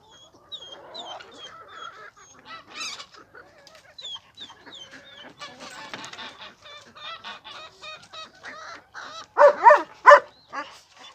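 Poultry calling: a run of small, high, falling peeps with scattered calls, then a few loud calls near the end.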